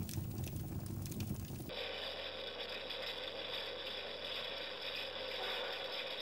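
Background music for the first second and a half or so, then a recorded wood-fire crackle played through the virtual fireplace module's speaker: an even hiss with irregular crackles.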